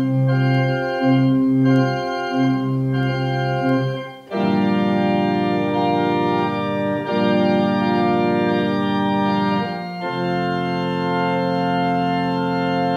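Organ playing slow, sustained chords. For the first four seconds the chords change about once a second; after a short break they are held for several seconds at a time.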